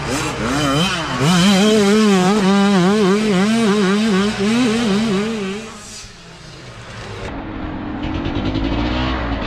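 Youth dirt bike engine revving hard on a loose climb, its pitch wavering rapidly up and down as the throttle works. It fades about six seconds in, and another bike's engine comes in near the end, rising in pitch.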